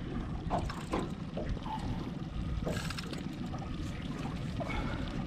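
Water sloshing and trickling around a small fishing boat, with a few faint clicks and knocks.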